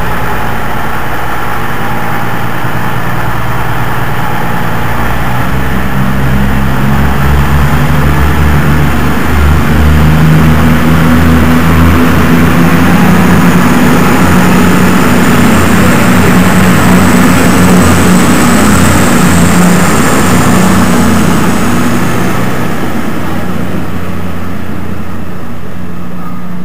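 CrossCountry Voyager diesel multiple unit pulling away, its underfloor diesel engines running loudly under load. The sound builds to its loudest in the middle, with a thin high whine over it, and dies down near the end as the train draws off.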